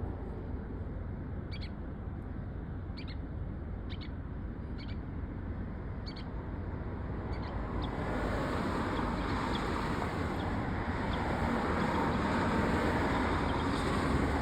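Outdoor ambience of steady wind noise that grows louder about halfway through. Short high chirps repeat roughly once a second over the first half.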